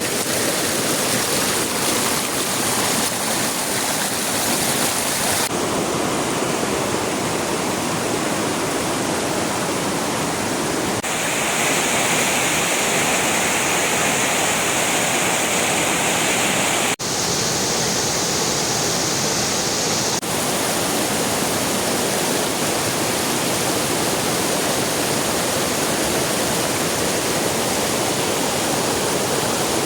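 Rushing water of a mountain river, a loud, steady rush with no voice or music. Its tone changes abruptly four times, about five, eleven, seventeen and twenty seconds in.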